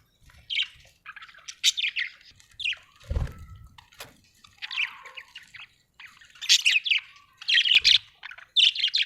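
Budgerigar chirping and chattering in quick, repeated bursts of short high notes, louder in the second half, with a soft low thump about three seconds in.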